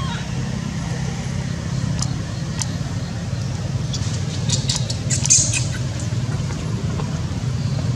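Newborn baby macaque giving a cluster of short, high-pitched squeaks about halfway through, loudest around five seconds in, while its mother pulls it about. Under it runs a steady low hum.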